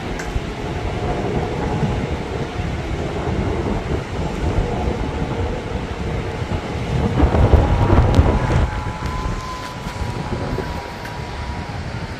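Strong wind gusting and buffeting the microphone as a deep, uneven rumble, with a stronger gust swelling about seven to eight seconds in. A faint thin whistling tone runs underneath.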